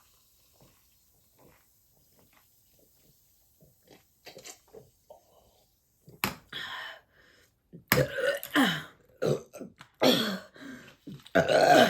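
Faint gulping as a fizzy antacid drink (Sal de Uvas Picot in water) is chugged, then, from about halfway through, a run of loud burps brought up by the gas from the effervescent drink.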